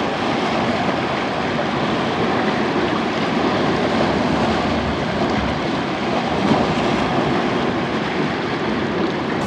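Storm wind and waves breaking against a rock dike: a steady, loud rush of noise with no let-up.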